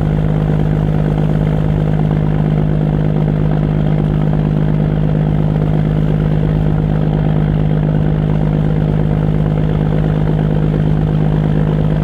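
A boat's inboard engine running steadily at a constant speed and pitch, heard from on board while it tows another boat on a taut line.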